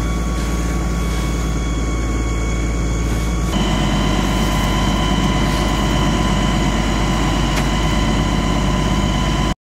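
DAF fire engine's diesel engine and water pump running steadily, a constant hum with low rumble. The sound shifts slightly about three and a half seconds in and cuts off suddenly near the end.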